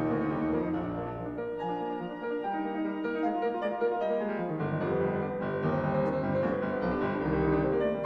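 Background instrumental music led by piano, with several notes held at once and changing steadily.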